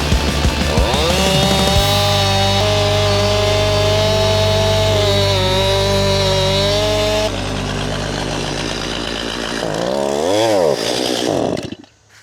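Stihl Farm Boss MS 271 two-stroke chainsaw cutting logs: it holds a steady pitch under load, revs up and down about ten seconds in, then stops suddenly near the end. The owner thinks the saw either ran out of fuel or overheated.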